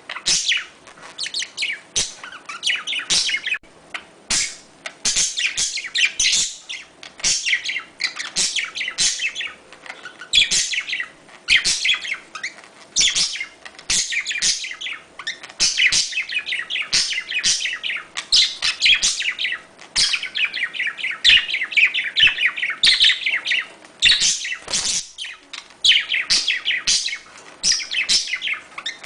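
Budgerigars chirping and warbling in quick, dense bursts of high twittering, one after another: the courtship chatter of mating budgies.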